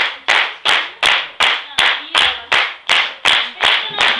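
Hands clapping together in a steady, even rhythm, about three claps a second.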